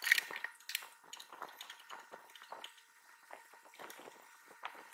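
Light clicks, taps and scrapes of hands handling the black housing of an Epax X1 resin printer as its bottom cover is put back on, loudest right at the start and once near the end.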